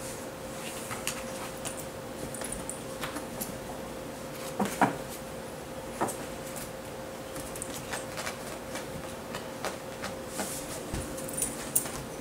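Cat and ferret play-fighting on carpet: scattered soft knocks, bumps and scuffles, the loudest about five seconds in, over a steady faint hum.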